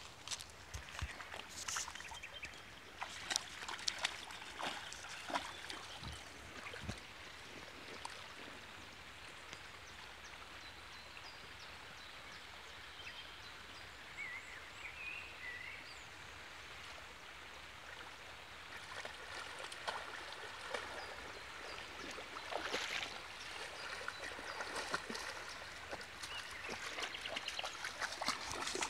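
Shallow river running over stones, a steady rushing hiss. Sharp clicks and knocks in the first several seconds, and splashing in the last few seconds as a young dog wades through the shallows.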